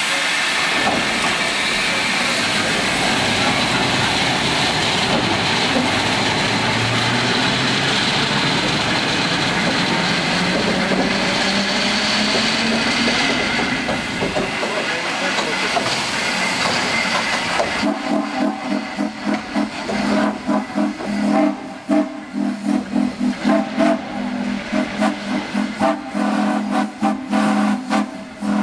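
2-8-0 steam locomotive No. 734 hissing steam in a loud, steady rush. About two-thirds of the way in, the hiss gives way to low, steady tones that pulse on and off rapidly.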